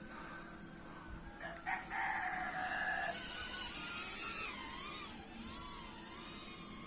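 A rooster crowing, starting about a second and a half in with a long held call and then wavering in pitch, over the thin high whine of a micro FPV quadcopter's motors.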